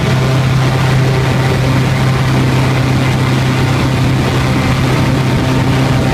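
Boat engine running steadily at a constant speed, a loud, even hum with a strong low tone and no change in pitch.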